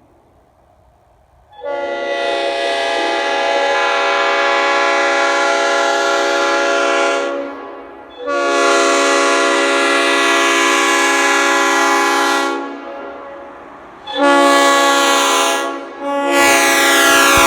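Leslie RS5T five-chime train horn, in RRO configuration with the 44 and 55 bells reversed, sounding its chord in four blasts: two long ones of about five seconds each, a short one, and a fourth near the end whose pitch falls.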